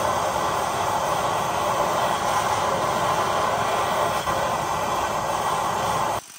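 Handheld gas torch burning steadily with an even hissing rush, then cut off suddenly near the end. The flame is heating a seized front axle nut to break it loose.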